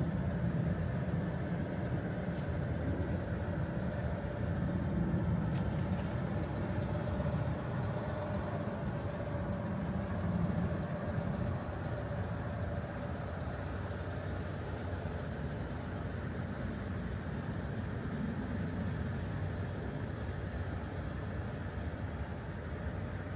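Steady low rumble of road traffic in the open air.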